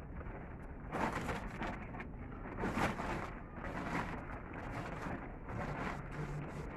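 Blue plastic tarpaulin rustling and crinkling in irregular bursts as it is handled and pulled, loudest about three seconds in.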